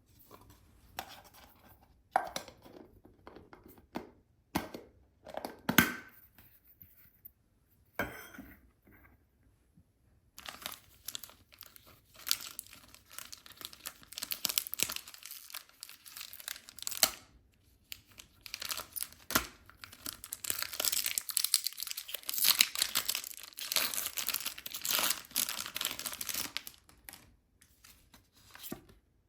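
Packaging being handled with a few sharp clicks and knocks, then about ten seconds in, plastic or foil wrapping torn open and crinkled at length.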